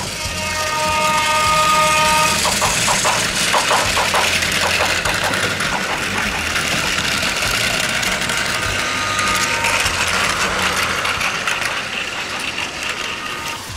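Battery-powered Plarail toy trains running on plastic track: a steady whirring of their small motors and gearboxes, with a run of regular clicks about two to five seconds in. A steady tone at several pitches sounds for about the first two seconds and again briefly near ten seconds.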